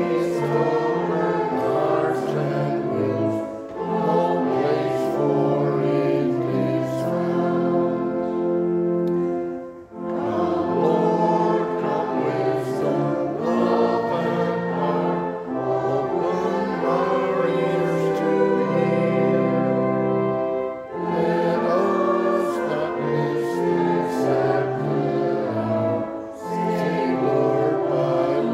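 Church choir singing a hymn with pipe organ accompaniment, the voices holding long notes over a sustained organ bass and pausing briefly between lines.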